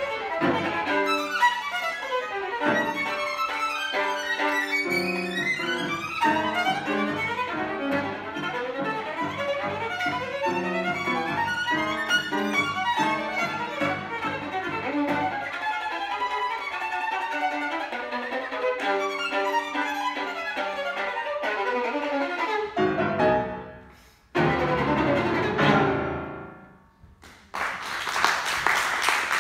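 Violin playing a fast, dense passage of contemporary classical music. Near the end it breaks off into two final notes that ring away to silence, and then audience applause starts.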